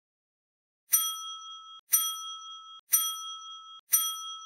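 A bell-like ding sound effect struck four times, about once a second. Each strike rings with a few steady, high-pitched tones and then cuts off abruptly.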